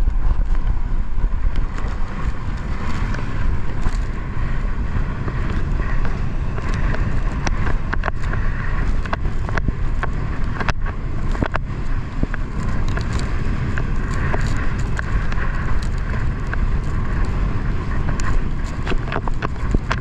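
Wind buffeting the microphone of a camera riding an inflatable tube towed at speed, with water spray and many short splashes and slaps against the tube.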